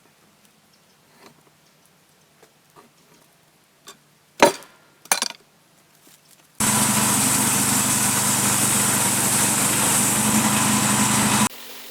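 A few sharp knocks, the loudest about four and five seconds in, then a sawmill cutting through a red maple log starts suddenly at full level, a loud steady noise of engine and blade. It cuts off just before the end, leaving the engine running more quietly.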